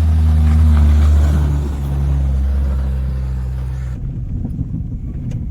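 Off-road vehicle's engine running hard under load as it drives up a steep climb at speed, a loud steady hum. About four seconds in it breaks off abruptly, leaving a quieter, rougher rumble.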